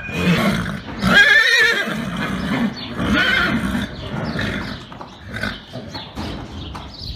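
Horse neighing: a loud, quavering whinny about a second in and a shorter one near three seconds, followed by quieter short sounds.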